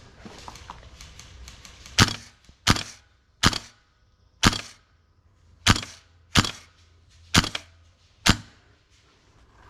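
Airsoft gun firing eight single shots, sharp cracks spaced irregularly about a second apart.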